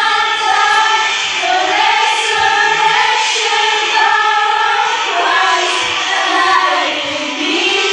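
A group of voices singing a song together, with music behind them.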